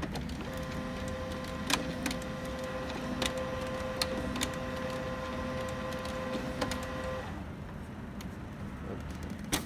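HP LaserJet CP1025nw colour laser printer's internal motor running with a steady whirring hum and occasional clicks for about seven seconds, then stopping: the toner carousel turning to bring the black cartridge to the access door after the black toner button is pressed. A single sharp click follows near the end.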